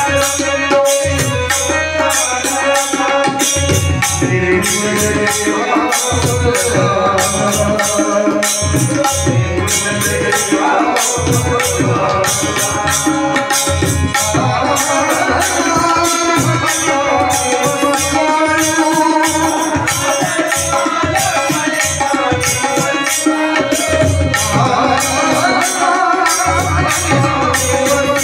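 Live Telugu devotional song: a male singer with harmonium accompaniment, the tabla keeping a steady rhythm under the melody.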